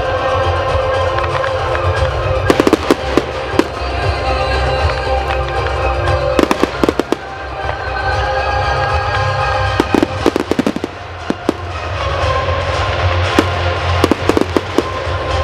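Professional fireworks display: clusters of sharp bangs and crackles a few seconds apart, over music.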